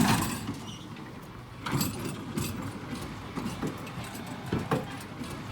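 A sharp knock, then scattered irregular clatters and rustles over a steady background noise.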